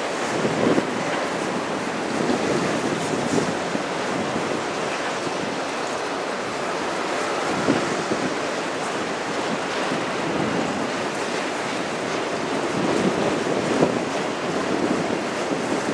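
Autorack freight cars rolling past: a steady rush of steel wheels on rail, with a few brief louder clunks from the wheels.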